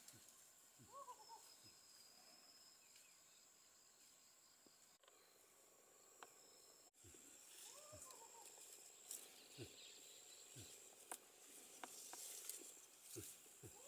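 Faint forest ambience: a steady high, thin insect drone, with a few short calls that rise and fall (about a second in and again near eight seconds) and scattered soft ticks and rustles.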